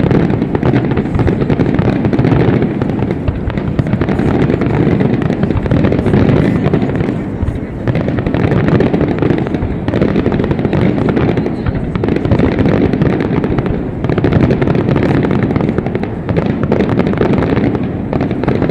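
Aerial fireworks going off in a dense, continuous barrage: many overlapping bangs merging into a low, steady rumble, with brief lulls only a few times.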